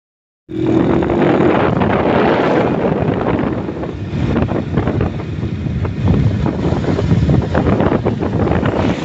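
Wind buffeting the microphone on a moving vehicle, loud and continuous, with vehicle running noise underneath; it starts abruptly about half a second in.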